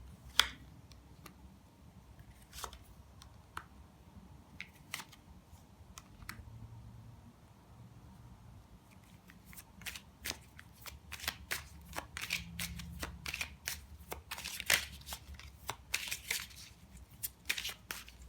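Tarot cards being handled and shuffled: a few scattered card snaps at first, then from about nine seconds in a quick, busy run of shuffling clicks.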